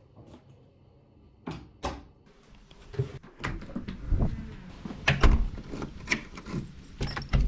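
Apartment front door being opened, shut and locked with a key: clicks of the lever handle and latch, heavy thumps of the door, the loudest about two thirds of the way in, then the key clicking in the lock.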